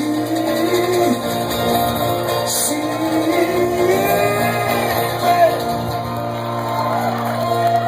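Live band music led by guitar, with sustained notes that bend and glide in pitch over a steady low note.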